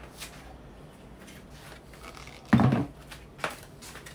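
A plastic blender jar set down on a table with a single thump about two and a half seconds in, followed by a lighter knock.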